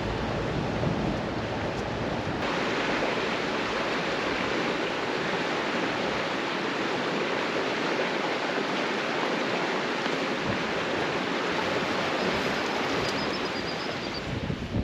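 Rushing water: a steady, even rush of running water with no break.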